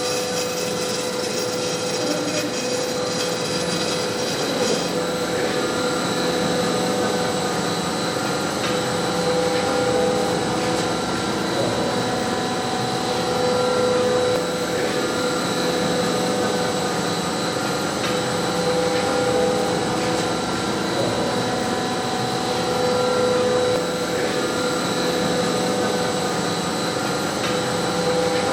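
Welding-electrode making machinery running: a steady mechanical din with several steady hum-like tones, swelling a little about every four to five seconds.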